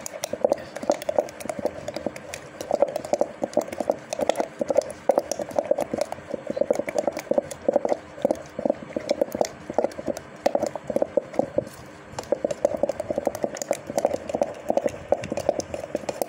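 Cream being beaten by hand in a steel bowl to churn it into butter: a fast, uneven clatter of the utensil knocking and scraping against the metal bowl.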